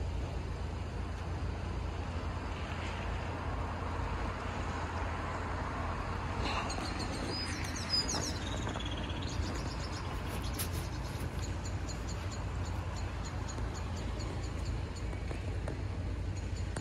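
Steady outdoor background of low rumble and hiss, with a few short high bird chirps about six to eight seconds in.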